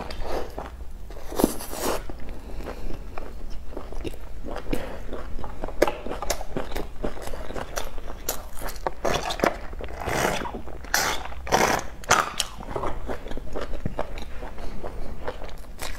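A person biting and chewing crusty flatbread: irregular crunches and crackles, loudest a couple of seconds in and again about two-thirds of the way through.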